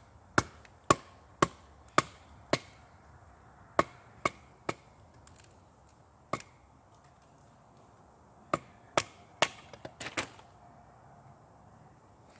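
A wooden club striking the back of a froe blade to split firewood into kindling, in sharp wooden knocks. The blows come in runs of about two a second, with pauses between, and end in a quick cluster of smaller knocks.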